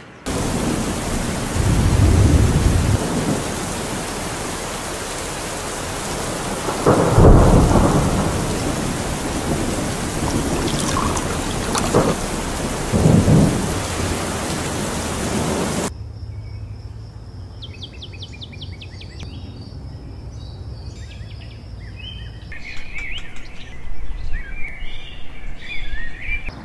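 Heavy rain falling with thunder, deep rumbles swelling about 2, 7 and 13 seconds in. It cuts off suddenly about 16 seconds in to a quieter scene of birds chirping.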